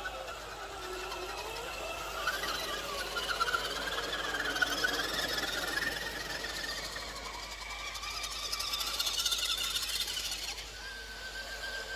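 Electric motors and geartrains of RC crawler trucks whining, the pitch rising and falling with the throttle.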